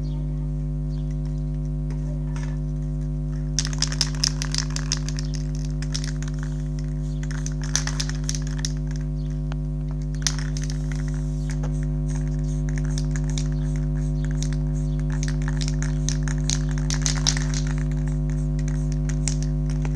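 Aerosol spray-paint cans rattling in short bursts as they are shaken and handled, several times, over a steady low hum.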